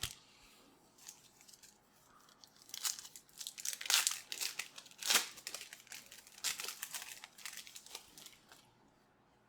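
A trading-card pack wrapper being torn open and crinkled, a run of sharp crackles that is busiest in the middle and dies away near the end.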